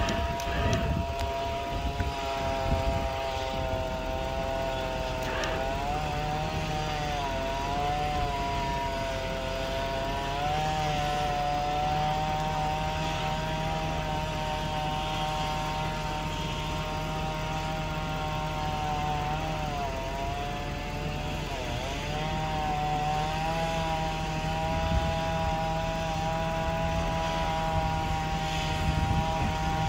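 Chainsaw running at high revs, its pitch sagging briefly several times and recovering as it takes load in the cut.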